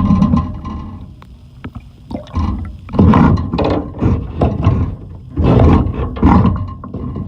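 Sinking-ship sound effect: deep, rumbling groaning and rushing noise that swells loud and fades again, with big surges about two and five seconds in.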